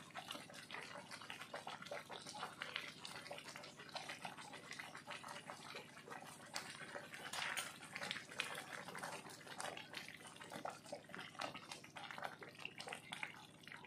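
Faint bubbling and popping of semolina halwa simmering in a kadai, with irregular small pops and wet splutters as a wooden spatula stirs it, over a steady low hum.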